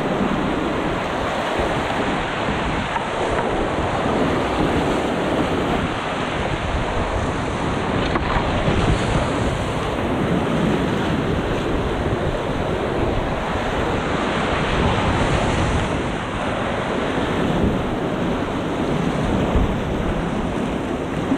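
Rushing creek whitewater heard close up from a kayak running a boulder rapid: a loud, steady roar of tumbling water, with rumble on the microphone.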